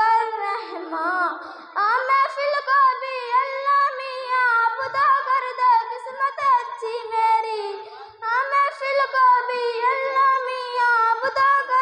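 A girl singing a solo Islamic devotional song in Urdu, with long held, ornamented notes and a brief pause for breath about two-thirds of the way through.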